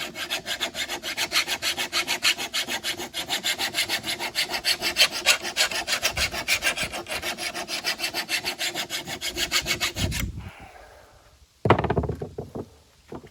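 Worn flat file rasping along the steel edge of a lawn mower blade in rapid, even strokes, several a second, sharpening the cutting edge. The filing stops about ten seconds in, and a loud sharp knock with a short ring follows near the end.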